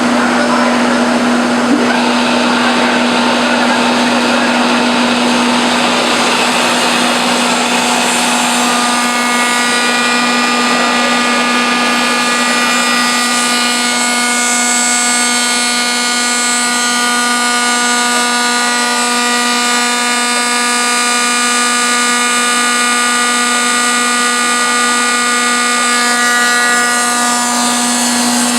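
Log lathe machine running with a steady motor hum. A higher, many-toned whine joins about eight seconds in and fades out near the end, likely the kerfing saw cutting.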